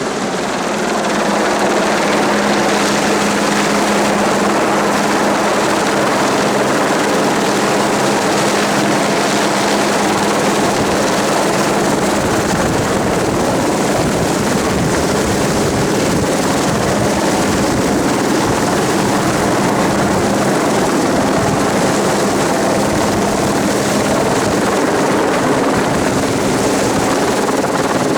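Helicopter running steadily: a loud, even engine and rotor noise with a constant low hum, rising slightly about a second in and then holding level.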